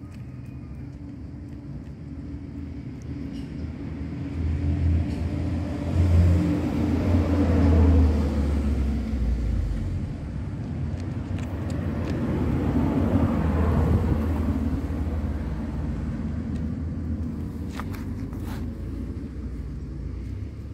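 Motor vehicle engines rumbling as traffic passes close by, the sound swelling twice and fading again.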